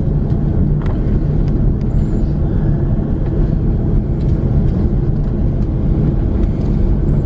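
Steady low rumble inside the cabin of an Airbus A340-300 taxiing after landing: its four CFM56 engines at low power and the gear rolling on the taxiway, with a few faint clicks.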